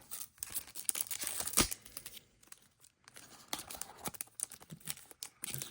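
Plastic wrapper of a trading-card pack crinkling and tearing open, with a sharp crackle about one and a half seconds in; after a short lull the wrapper rustles again as the cards come out.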